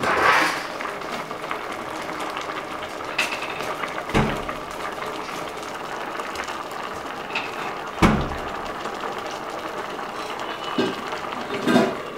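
A pot of vegetables boiling on a charcoal stove, a steady bubbling hiss with a few sharp knocks. Near the end the metal lid is set back on the pot with a clatter.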